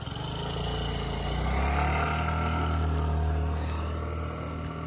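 Small motorbike engine revved up from idle and held at a steady, higher pitch for a few seconds.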